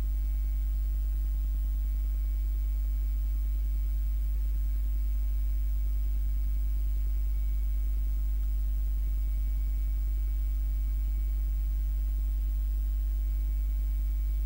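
Steady low electrical hum with a ladder of overtones above it and a faint thin high whine, unchanging throughout.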